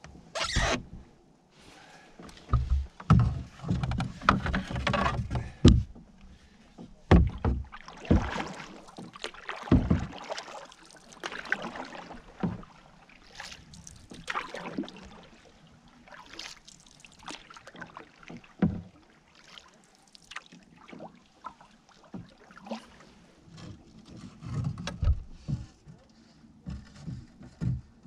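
A wooden canoe paddle working through the water in uneven strokes, with splashes and scattered knocks and bumps against the canoe.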